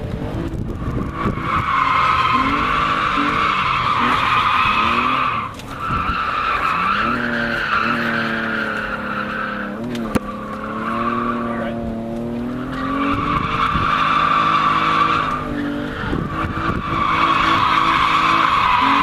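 Car drifting, heard from inside the cabin: tyres squeal in four long stretches with short breaks between them, over the engine revving up and down.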